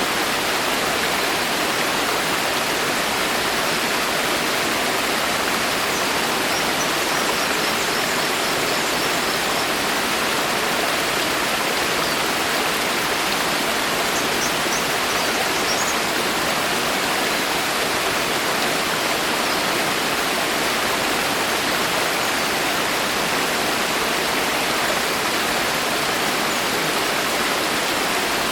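Rain falling steadily in a forest: an even, unbroken hiss of drops on foliage at a constant level.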